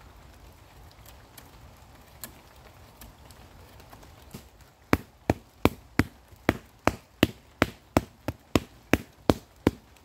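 After a quiet first half, a run of sharp, regular slaps, about three a second: a hand patting bare damp earth flat to make a level spot on a bank.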